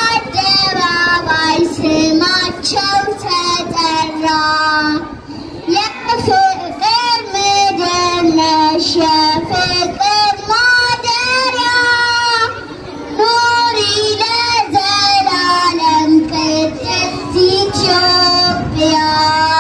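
Children singing a song into a microphone, one high child's voice to the fore, in long held phrases with two short breaks, about five seconds in and just past the middle.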